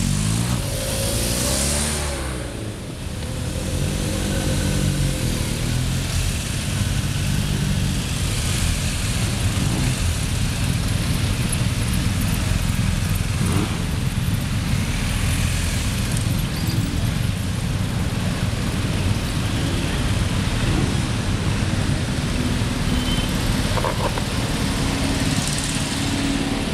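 A column of police motorcycles rides past one after another at low speed, their engines running over a steady traffic rumble. A steadier engine tone comes in near the end.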